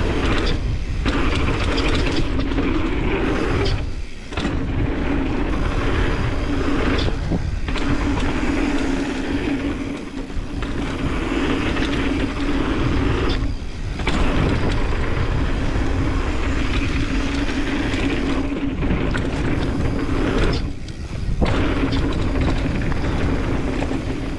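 Wind rushing over the camera microphone and mountain bike tyres rolling over rough dirt trail on a fast downhill run. The noise drops out briefly several times.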